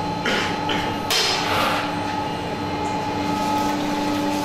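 Ice cream making machinery running with a steady two-note mechanical hum, with metallic clattering and knocks during the first couple of seconds.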